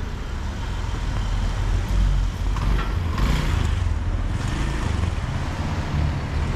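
Street traffic: a motor vehicle's low engine rumble, with a louder hiss of a vehicle passing about three to four and a half seconds in.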